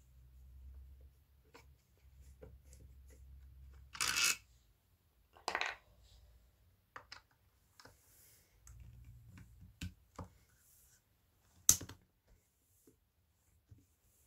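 Clicks and clatter of small hard parts being handled and set down while a speaker is taken apart: two short scraping rustles about four and five and a half seconds in, scattered light clicks, and one sharp click near the end, the loudest.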